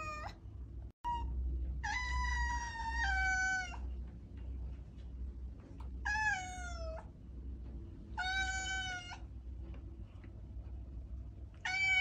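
A cat meowing repeatedly: drawn-out meows a couple of seconds apart, each sliding down in pitch. The longest, about two seconds, steps down partway through.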